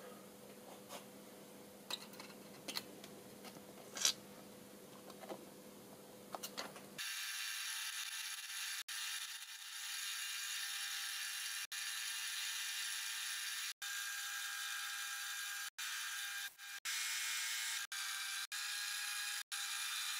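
A faint steady hum with a few light clicks from the idle lathe, then from about 7 seconds in a metal lathe spinning during single-point threading of a left-hand internal thread: a steady, thin hissing whir with no low end, broken by several brief gaps.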